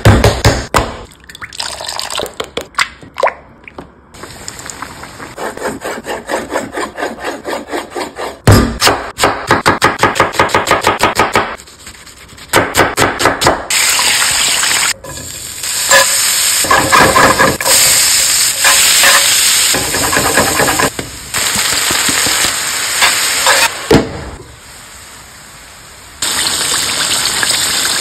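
A run of kitchen sounds: quick knocks and taps for much of the first half, then chicken breast deep-frying in a pan of hot oil, a loud steady sizzle through most of the second half.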